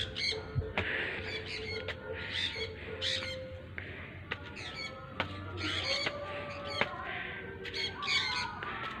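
Birds calling with short, harsh squawks that repeat about once or twice a second, over faint music.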